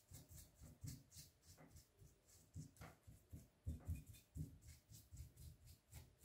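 Bristle paintbrush stroking and dabbing over a rusty pipe wrench, short soft swishing strokes about two to three a second with faint low thuds.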